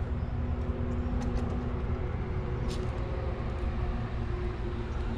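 Steady low drone of a distant motor vehicle engine, a constant hum over a rumble, with a few faint clicks of handling.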